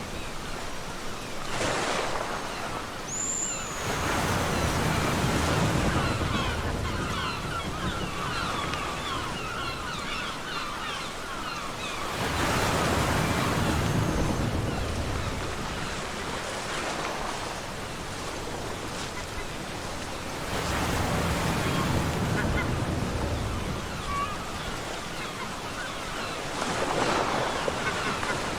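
Ocean surf breaking and washing up a beach, in swells about every six to eight seconds. A bird gives one short high call about three seconds in.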